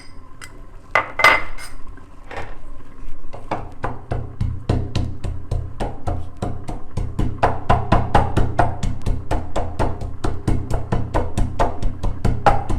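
A few clinks of a metal utensil against a cooking pot in the first couple of seconds, then background music with a fast, steady percussive beat.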